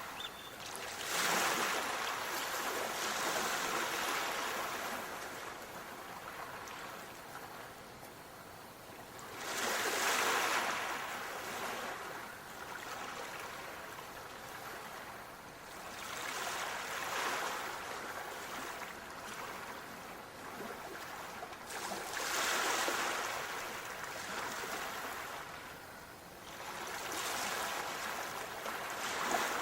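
Sea waves washing in and drawing back. Each wave comes as a hissing swell that rises and fades, about every five to eight seconds.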